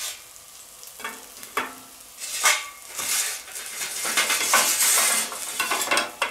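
Glowing charcoal briquettes tipped from a metal chimney starter into a perforated steel charcoal basket: several clattering knocks of coals and metal, then a longer hissing, rattling pour of coals about three to five seconds in, and a few more clinks near the end. Bacon sizzles on the hot steel fire plate underneath.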